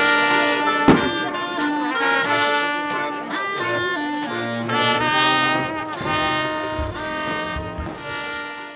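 Background music led by brass instruments, with sharp drum hits, the loudest about a second in. It fades and stops at the very end.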